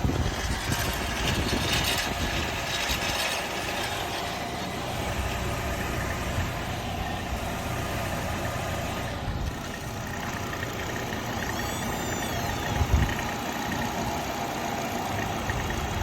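Nissan Altima 2.5 SV's four-cylinder engine running steadily, recorded for a rattle and whine the owner cannot identify, with a sharp knock about 13 seconds in.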